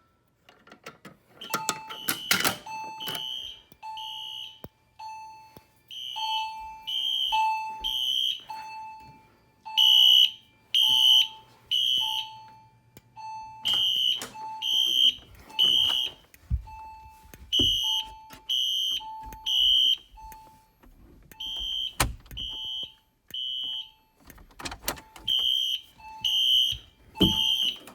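Home fire alarm system set off by a manual pull station: horns sound in a temporal-three pattern (three blasts, a pause, repeated), starting about two seconds in, over a lower tone that repeats about once a second.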